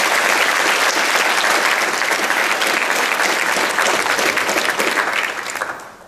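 Audience applauding: dense, steady clapping that dies away near the end.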